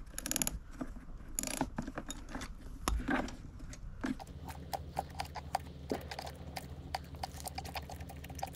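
Ratchet socket wrench clicking as a tight spark plug is unscrewed from a Honda EU2000i generator, with a few knocks in the first three seconds. From about four seconds in the clicks come rapidly and evenly, about five a second.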